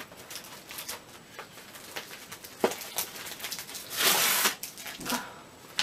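Brown paper mailing envelope being torn open by hand and crinkled, in short crackles and clicks, with a longer rip about four seconds in that is the loudest sound.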